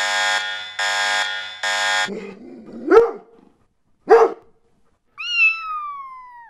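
Title-card sound effect: a harsh electronic alarm tone pulses three times, then two short, sharp animal cries and a long animal cry that falls slowly in pitch.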